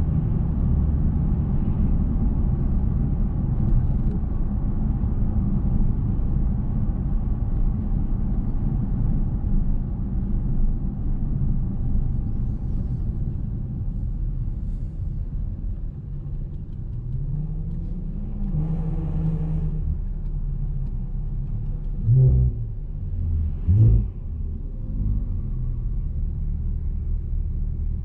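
Car driving on a city street: a steady low road and engine rumble that eases about halfway through as the car slows. A short rising tone follows, and near the end come two short thumps a couple of seconds apart.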